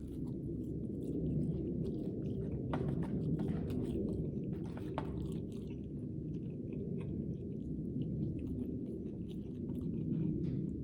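Close-miked chewing of food, with scattered small crunchy clicks, most of them a few seconds in.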